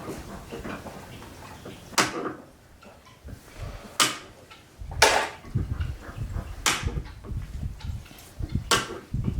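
Five sharp knocks on wood, spaced one to two seconds apart, from a wooden milking stand being taken apart, with a low rumble between the later ones.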